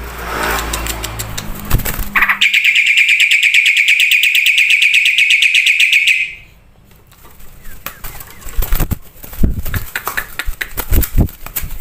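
Black-winged starling (jalak putih) song: a loud, rapid, even trill lasting about four seconds from a little past two seconds in, then scattered clicks and short sharp notes.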